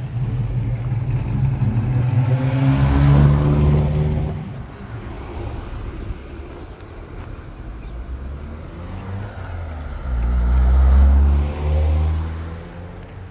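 Car engines driving past twice: the first grows louder to a peak about three seconds in and fades, and a second passes loudly near the end.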